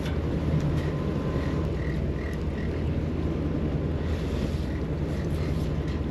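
Steady low hum of a large party boat's engines running, with wind buffeting the microphone and the wash of the sea.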